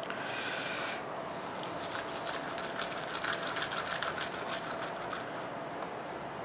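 Garlic cloves being rolled inside a tube-shaped garlic roller pressed under the palms against a wooden cutting board. The papery skins crackle in a quick run of small clicks as they are rubbed off. A brief hiss comes in the first second.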